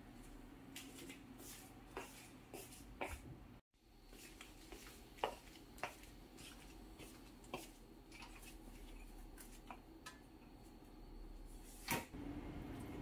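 Quiet room tone with scattered light taps and clicks from someone moving about on a tiled floor. A sharper knock comes near the end.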